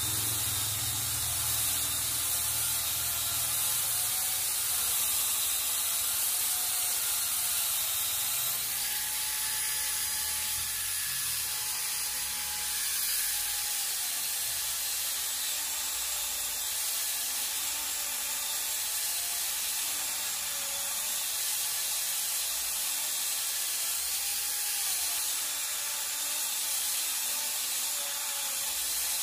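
Electric angle grinder fitted with a chainsaw converter attachment, its chain cutting into a log: a steady high hiss of chain through wood over a motor whine that wavers up and down as the load changes.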